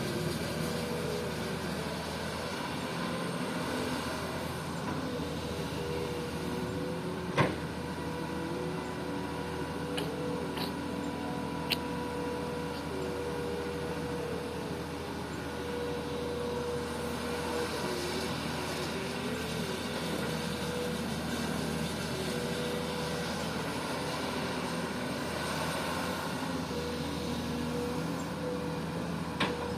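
Komatsu PC-200 excavator's diesel engine running steadily under work, its pitch shifting up and down, with three sharp knocks: about 7 seconds in, about 12 seconds in and near the end.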